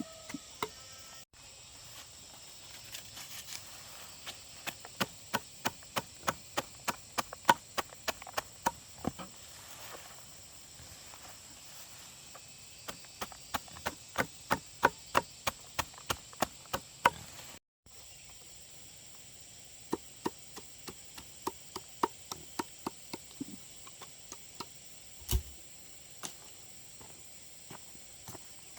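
Repeated sharp chopping strikes, about two to three a second, in runs of several seconds with pauses between, over a steady high insect drone.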